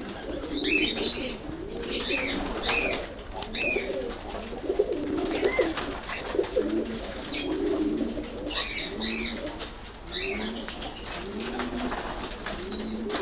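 Several Iraqi pigeons cooing in overlapping, continuous low calls, with short higher-pitched chirps scattered among them.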